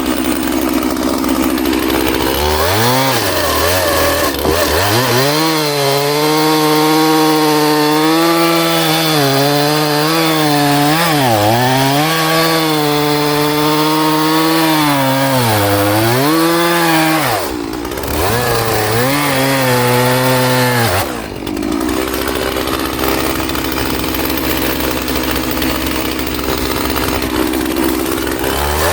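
Stihl MS311 two-stroke chainsaw idling, then revving to full throttle and cutting wood, the engine pitch sagging again and again as the freshly sharpened chain bites in. It drops back to idle about two-thirds of the way through.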